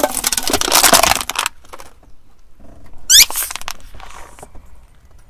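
Aluminium drink can crushed under a car tyre: a loud metallic crunching and crackling for about a second and a half, then fainter crinkling. About three seconds in comes a short, very loud squeal that rises in pitch.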